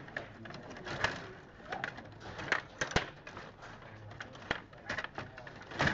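Stiga Play Off table hockey game in play: irregular clicks and sharp knocks as the rod-controlled plastic players strike the puck and the rods rattle in the table.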